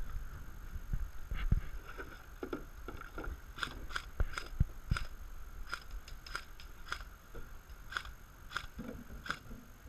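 Airsoft rifle firing a string of single shots, about a dozen sharp cracks roughly two a second, with a few low thumps.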